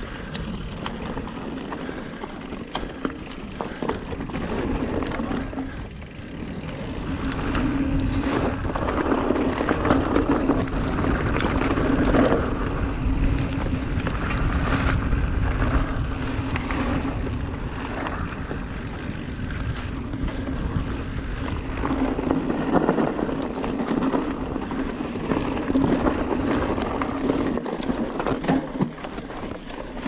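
Mountain bike riding over rough trail: tyres rolling on dirt and stones, with many short knocks and rattles from the bike over bumps and a steady buzz. Wind is on the microphone. The sound grows louder after about seven seconds.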